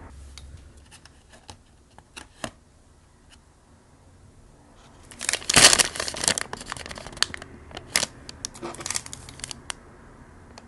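A few short crackles, then a paper fast-food bag crinkling and rustling loudly for several seconds as it is handled, the loudest rustle about halfway through.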